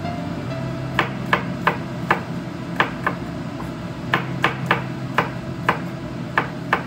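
Kitchen knife chopping garlic cloves on a bamboo cutting board: about a dozen sharp, uneven knocks of the blade on the wood, starting about a second in, over a steady low hum.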